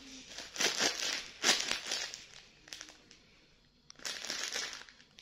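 Clear plastic bag of nimko snack mix crinkling in a hand as it is handled: a few crinkles in the first two seconds, then another spell about four seconds in.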